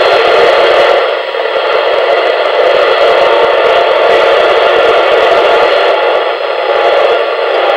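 FM receiver audio from a Yaesu all-mode transceiver tuned to the ARISSat-1 satellite downlink near 145.95 MHz: a loud, hissy signal that dips about a second in and again near the end. The fading is what the operator takes for the satellite turning as it passes.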